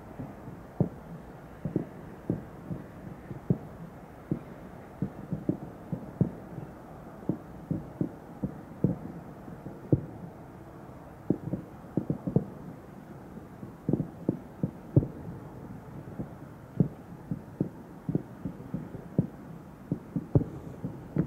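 Aerial fireworks booming: an irregular, rapid string of low booms from shells, sometimes several a second.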